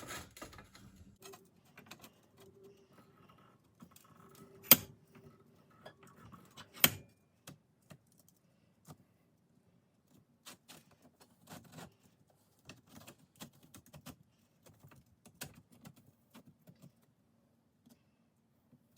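Sheet metal and angle iron being handled and set in a bench vise: scattered light metallic clicks and rattles, with two sharper knocks about five and seven seconds in.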